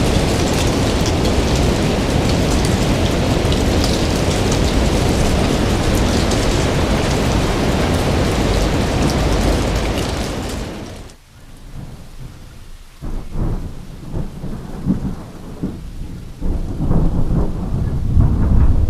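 Heavy rain pouring in a dense, steady hiss, which fades out about ten seconds in. Low, uneven thunder then rumbles in with scattered crackles, growing louder toward the end.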